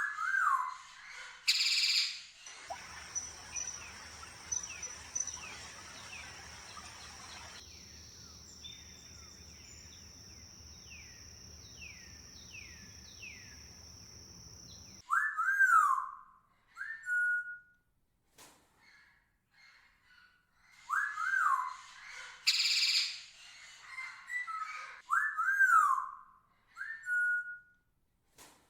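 Tropical birds calling: loud, clear whistled notes that rise and fall, repeated in groups, with a couple of short harsh bursts. For a stretch in the first half a steady high whine and a low hum lie under a run of short, quick falling notes.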